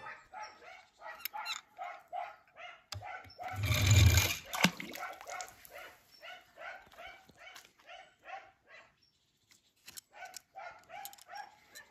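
A dog barking over and over in short, quick yaps, two or three a second, with a brief pause near nine seconds. About four seconds in there is a louder, brief rush of noise.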